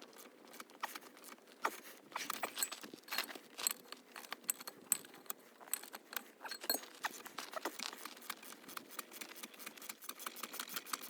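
Many light metallic clicks and taps from hand tools working on the hydraulic cylinder's metal parts, irregular at first and coming quicker and more even, a few a second, near the end.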